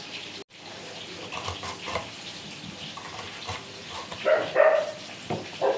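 A dog yelping twice near the end, each cry about half a second long, over a steady sizzle of frying.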